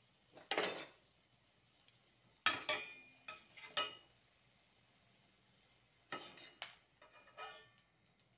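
Metal slotted spatula scraping and clinking against a stainless steel frying pan in three short bursts while a fried fish patty is turned and lifted out of the oil.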